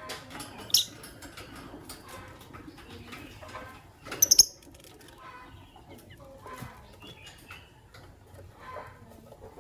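Lovebirds chirping: a sharp shrill chirp about a second in and a louder burst of several shrill chirps around four seconds in, with softer chattering and short clicking sounds between.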